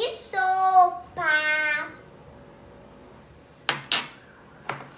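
A child's voice in drawn-out, sing-song sounds for about two seconds, then a few sharp clinks of kitchen utensils or dishes, two close together and one near the end.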